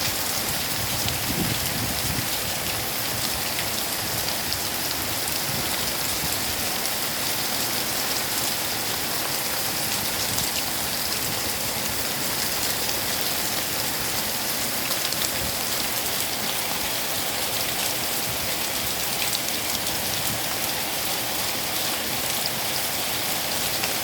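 Heavy rain pouring down and splashing on surfaces, a steady, even hiss.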